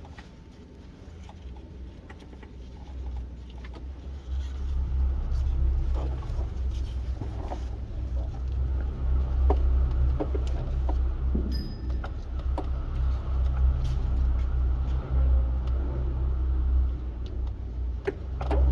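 A motor vehicle's engine running with a steady low rumble that grows louder about four seconds in and then holds, with scattered small clicks and rattles over it.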